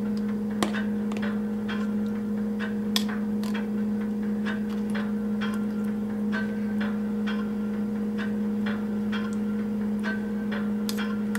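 A metal spoon clicking and scraping against a tin can of mixed fruit and the plastic tub as the fruit is spooned out, in light irregular clicks about two or three a second. A steady low hum runs underneath.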